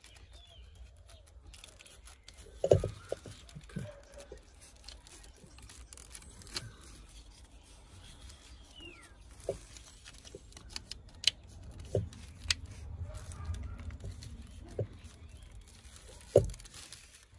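Gloved hands handling a plastic multi-pin wiring-harness connector at a car's ECU: scattered clicks and knocks with rustling of the wiring and gloves. The loudest knocks come a few seconds in and near the end.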